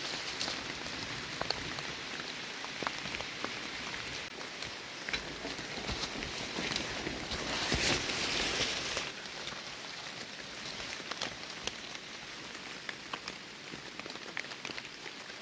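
Rain falling steadily on wet leaf litter and a rain jacket, with scattered sharp drop ticks. A louder rustle comes about eight seconds in, as a hand brushes through ferns and dead leaves to pick a porcino.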